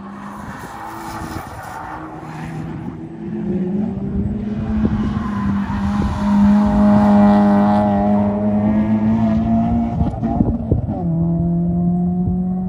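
Race cars lapping a road course: a MK5 Toyota Supra, then a ninth-generation Honda Civic driven hard through a corner, its engine note loudest as it passes about halfway through. Near the end the note dips briefly and then climbs again as the car accelerates away.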